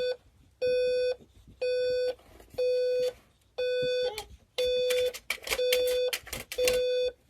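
Electronic beeper sounding a steady, even beep about once a second, each beep about half a second long at one pitch. Some other rustling and knocking noise is heard between the beeps in the second half.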